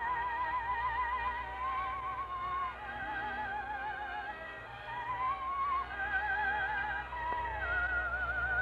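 Radio-drama orchestral music bridge: a slow melody of held notes, each about a second long, with strong vibrato, over sustained chords.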